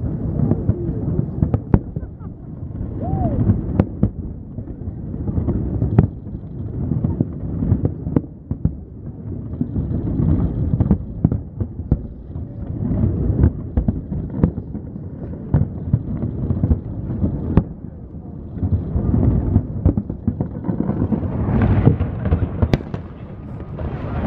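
Aerial fireworks display bursting: sharp bangs at irregular intervals over a continuous low rumble of booms.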